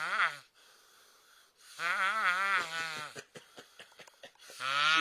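A person snoring loudly, each breath drawn out into a high, wavering, bleat-like tone; three snores about two and a half seconds apart.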